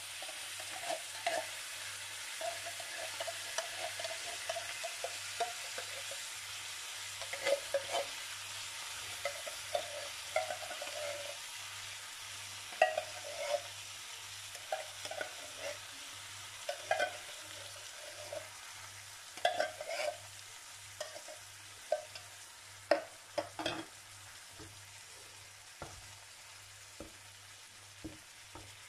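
Chicken pieces sizzling in a stainless steel frying pan as thick coconut milk is scooped in from the can and stirred with a wooden spatula, with frequent short scrapes and knocks of the spatula on the pan and can. The sizzle dies down gradually.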